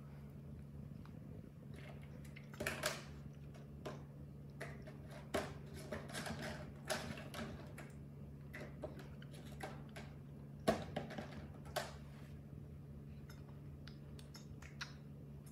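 Scattered soft clicks and taps from a baby monkey drinking from a plastic milk bottle, sucking on the teat and handling the bottle while it shifts in a wicker basket. The sharpest tap comes about two-thirds of the way in. A steady low hum runs underneath.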